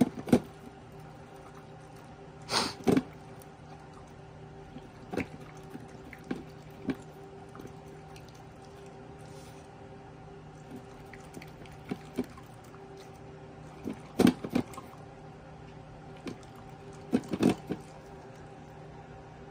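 Shiba Inu eating from a stainless-steel bowl: its muzzle and tongue clink and lick against the metal in short wet clusters every few seconds. A steady faint hum sits underneath.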